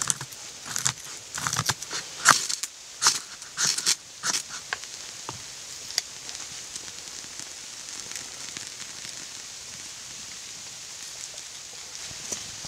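A knife blade scraping down a stick of dry wood in a quick series of strokes, carving curled feather-stick shavings. From about four and a half seconds in, a steady soft hiss with one sharp crack about six seconds in, as the shavings are lit and catch fire.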